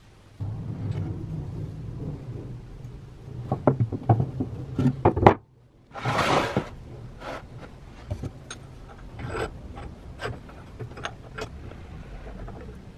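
Workshop handling noises: knocks and clicks of small metal parts being handled on a wooden workbench and set into a bench vise. The first few seconds hold a run of sharp knocks, the loudest about five seconds in. After a brief break comes a short hiss, then scattered clicks.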